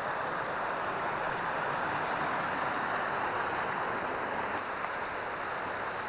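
A small waterfall on a hill burn, water pouring and splashing steadily.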